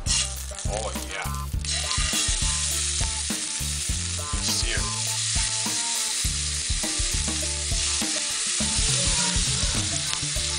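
Salmon fillets searing in hot oil in a stainless steel skillet. The sizzle starts about a second and a half in, as the fish goes into the pan, and then holds steady.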